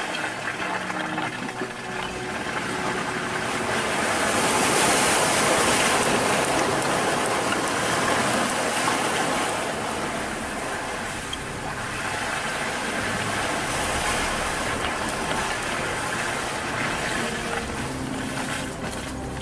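A 4x4 driving off-road over rough ground: engine and tyre noise with a steady rushing hiss that swells loudest around five seconds in and then eases.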